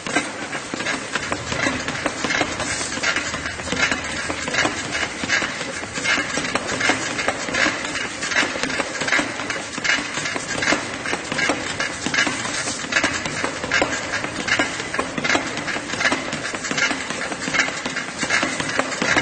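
Treadmill with someone running on it: the belt and motor run steadily under an even rhythm of footfalls on the deck, with squeaks in step.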